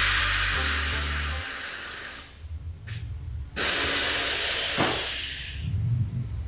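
Air Lift Performance air suspension exhausting air with a loud hiss as the truck is lowered all the way down: two long hisses, each fading as it goes, the second starting a second or so after the first ends.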